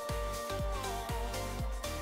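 Background music with a steady beat: a deep kick drum about twice a second under held synth melody notes.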